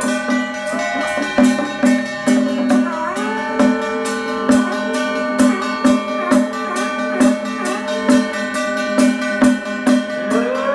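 A traditional temple ritual band playing: a melody that slides in pitch over a steady held tone, with gong and drum beats every half second to a second.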